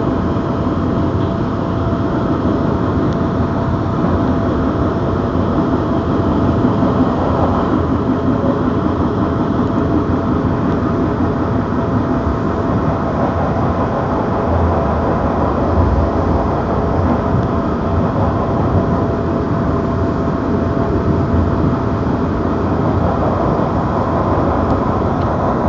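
Passenger train running at speed, heard from inside the carriage: a steady rumble of wheels on the track with a faint steady whine that fades out a few seconds before the end.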